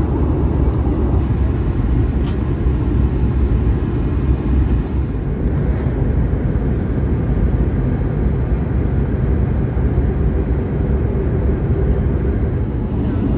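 Airbus A320 cabin noise in flight, heard from a window seat: a steady low rumble of engines and airflow, shifting slightly about five seconds in.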